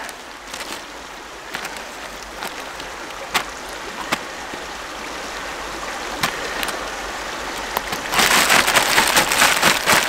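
Plastic zip-top bag crinkling and rustling as trout fillets are handled and shaken in flour and blackening seasoning, with scattered sharp crackles, then much louder, dense rustling for about the last two seconds.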